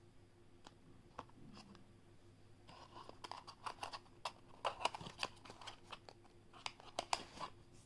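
Paperboard product box being handled and opened: a few light clicks, then from about three seconds in a busy stretch of crackling and rustling card that stops shortly before the end.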